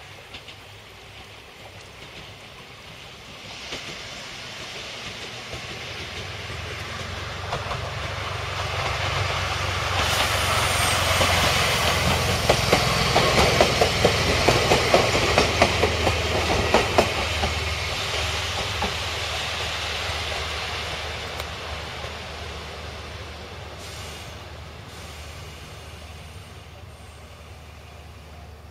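Electric train running past on the Hokuriku Railroad Ishikawa Line. It grows louder, its wheels click over the rail joints as it goes by, then it fades away.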